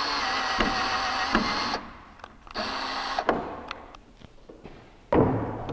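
Workshop power-tool noise that cuts off about two seconds in, then scattered knocks and handling noise, and a heavy thump near the end as a DeWalt DW744 benchtop table saw is set down on a plywood workbench.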